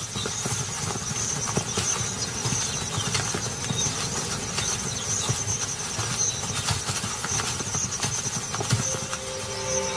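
Irregular footfalls and rustling of ostriches walking through grass, a scatter of short soft knocks over a steady outdoor hiss.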